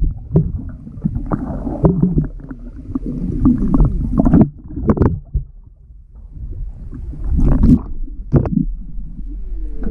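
Muffled underwater sound from a camera held below the surface: water gurgling and sloshing against it, with a low rumble and irregular knocks and splashes.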